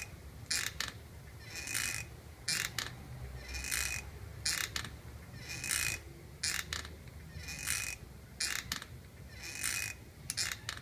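Hammock hook squeaking as a hammock swings on it, metal rubbing on metal: a high-pitched squeak or rasp about every second, in a regular rhythm that repeats with each swing of the hammock.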